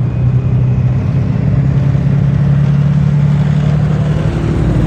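Tracked armoured military vehicles driving past in a column, their engines running in a steady loud drone that rises slightly in pitch over the first few seconds, with a deeper rumble building near the end as one passes close.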